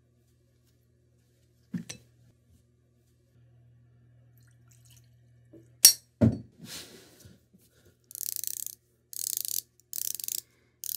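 Rotating bezel of a Marathon TSAR watch being turned in three quick bursts of crisp ratcheting clicks, after a couple of sharp metal-and-glass clinks as the watch is handled.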